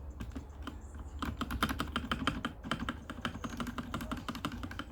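Mechanical keyboard keys clicking in rapid succession, many presses a second, as the keys are pressed and tested after new keycaps have been fitted.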